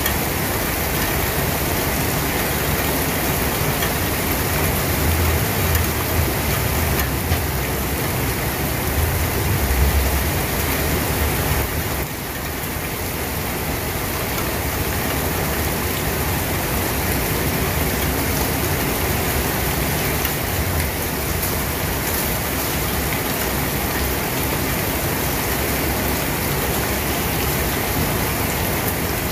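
Steady rain falling, an even hiss of drops. A low rumble runs under it for the first twelve seconds or so, then eases off and the rain sound goes on slightly softer.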